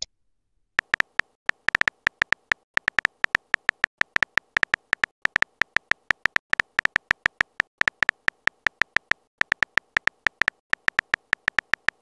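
Simulated keyboard typing sound from a texting-story animation: a rapid, uneven run of short clicks, several a second, one per character typed, starting about a second in.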